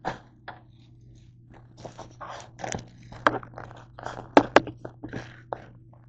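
Plastic bag crinkling and rustling as it is handled close to the microphone: an irregular run of crackly bursts and sharp clicks that stops near the end.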